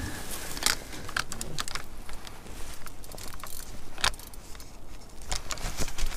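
Scattered light clicks, knocks and rattles of fishing gear being handled in a small boat as a landing net is brought out over the side, with one sharper knock about four seconds in.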